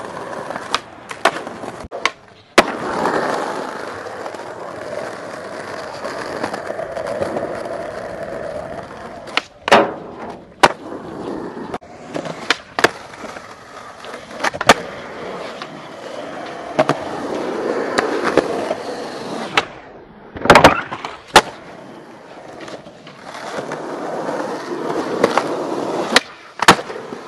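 Skateboard wheels rolling on concrete, broken by about a dozen sharp clacks and cracks of the board hitting the ground. The loudest cracks come about two-thirds of the way through.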